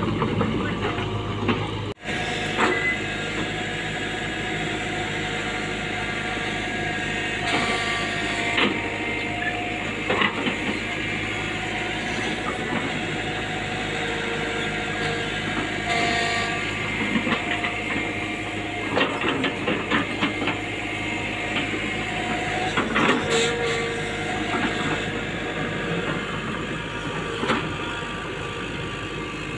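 Tata Hitachi Zaxis 120H hydraulic excavator running steadily while working soil, its engine hum overlaid with whining tones that come and go and a few sharp clanks from the bucket and tracks.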